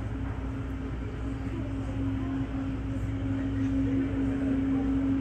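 Steady hum of a Boeing 737 MAX 8 parked at the gate, with a low rumble under a held mid-low tone that grows slightly louder toward the end.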